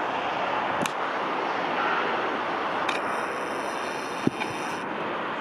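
Steady rushing noise of a Boeing 747-8F's four GEnx-2B turbofan engines as the jet rolls along the runway after touchdown. A short sharp click comes about four seconds in.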